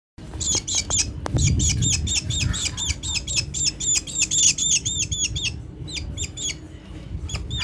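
Baby bird chirping rapidly, a fast run of short high chirps about five a second that thins out to scattered chirps after about five seconds, over a low rumble.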